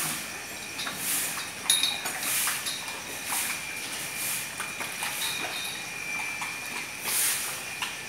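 Cows drinking at a water trough, their metal neck chains clinking against the trough rails in small clicks. A hiss swells and fades about once a second over a faint, steady high tone.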